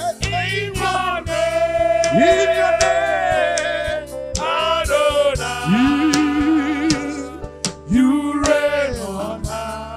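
Gospel worship song with instrumental backing, the voices holding long notes with a wavering vibrato.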